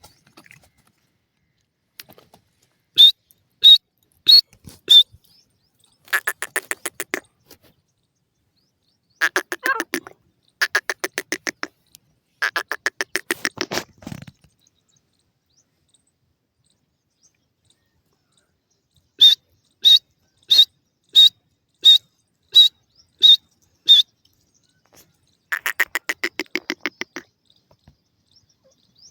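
Grey francolin calling in repeated bouts: quick rattling runs of notes alternating with series of loud, sharp, high notes about one every two-thirds of a second, with a few seconds of silence midway.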